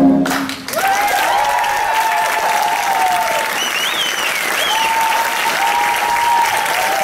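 The music stops just after the start, and the audience then applauds, with long held shouts and a few whistles over the clapping.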